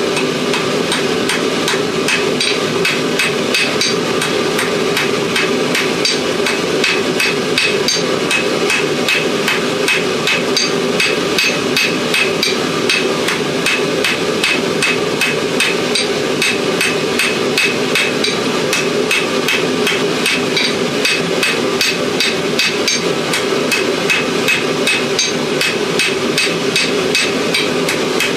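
Hand hammer forging a hot steel file blank on an anvil, steady blows at about two to three a second with a short metallic ring to each, over a constant drone.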